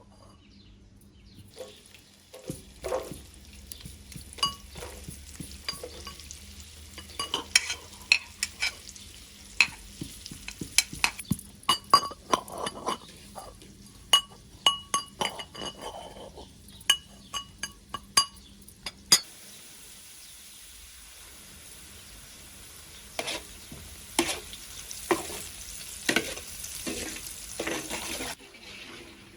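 Food frying in a pan, with a utensil clinking and scraping against the pan many times as it is stirred. About two-thirds of the way in a steady sizzle takes over, and more stirring knocks come near the end.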